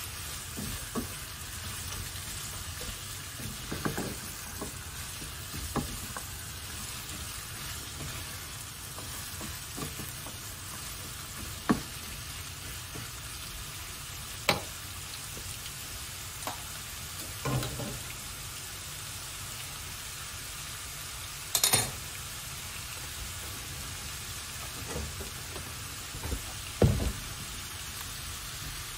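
Sliced onions and carrots sizzling steadily in a frying pan, stirred with a spatula that knocks and scrapes against the pan every few seconds.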